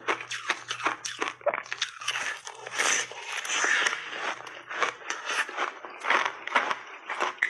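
Close-miked crunching of a frozen berry-flavoured ice block bitten and chewed between the teeth: crisp, crackling crunches a few per second, with a denser run of grinding crunches around the middle.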